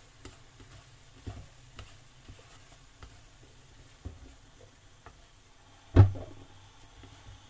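Wooden chopsticks stirring diced corned beef, potatoes and carrots in a nonstick frying pan: light clicks and scrapes against the pan over a faint sizzle, with one sharp knock about six seconds in.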